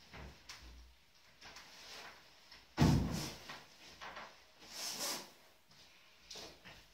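A large upholstered sofa cushion being shifted and laid onto a wooden sofa-bed frame: light knocks and fabric rustling, with one loud thump a little under three seconds in.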